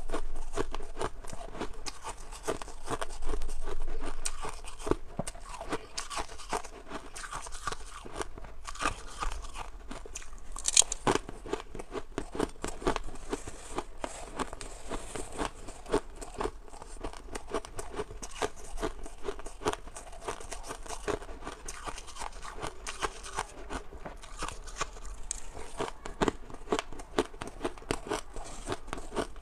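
Crisp crunching of frosty white ice: bites of packed frost chewed in the mouth, and a metal spoon scraping and scooping through crushed frost in a steel bowl, as a dense, continuous run of crackles with one sharper crack about eleven seconds in.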